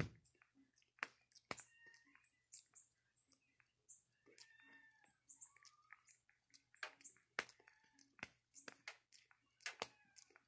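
Java macaque grooming a person's hair right at the microphone: an irregular run of soft clicks and wet smacks from its fingers and mouth working through the hair.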